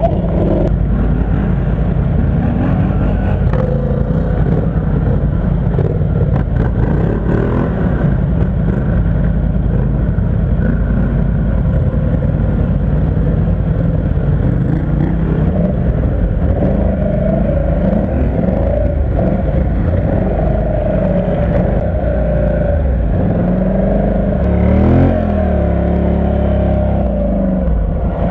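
Quad bike (ATV) engines running steadily, revving up and down repeatedly in the second half, with the strongest rise and fall in engine pitch about 25 seconds in.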